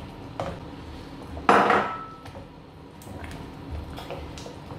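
Wooden spoon stirring thick soup in a metal pot and knocking against it: one loud knock about a second and a half in that rings briefly, then several lighter knocks.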